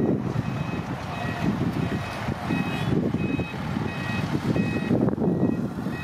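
Truck's reversing alarm sounding a repeating two-tone beep, high and low notes alternating, starting about half a second in, over the running engine of a locally built dump truck.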